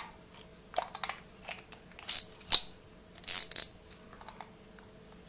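Small scattered clicks from a closed-face spincast fishing reel being handled, with two louder bursts of rustling about two and three and a half seconds in, the second longer.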